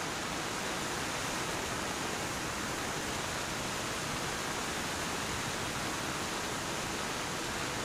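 Steady, even hiss with no tones or voices in it.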